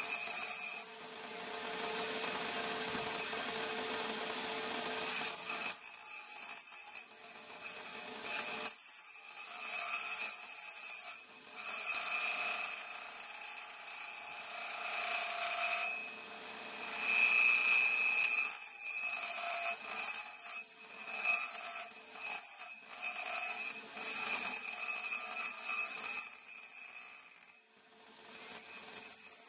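Homemade metal lathe cutting a thick metal plate with a carbide tool. The cut makes a high-pitched scraping ring that breaks off briefly and starts again many times.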